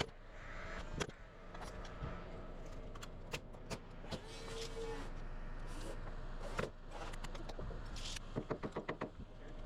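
Scattered knocks and clicks of carpentry work on lumber and tools. A short steady tone sounds about halfway through, and a quick run of six or seven clicks comes near the end.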